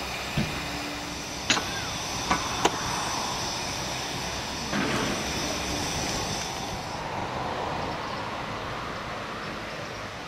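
Narrow-gauge steam locomotive No 12 Joan standing in steam with a steady hiss, and four sharp metallic clanks in the first three seconds. The hiss fades after about seven seconds.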